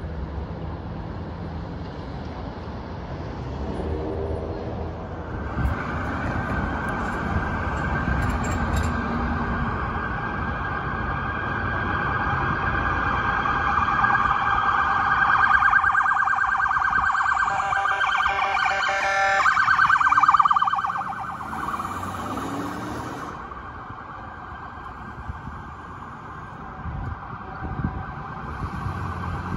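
Emergency vehicle electronic siren. It comes in about five seconds in, switches to a fast yelp part way through, grows louder and cuts off about two-thirds of the way through, with traffic noise underneath.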